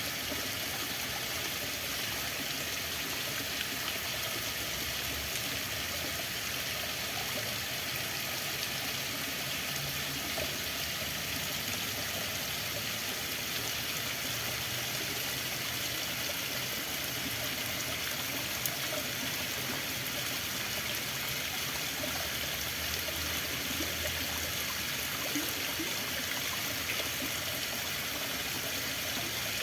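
Running water flowing steadily, a continuous rushing hiss like a stream, with faint small splashes now and then.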